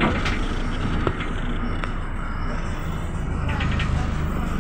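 Inside a Mercedes-Benz O405 city bus under way: the engine runs steadily under a wash of road noise, with a few short rattles and knocks from the body.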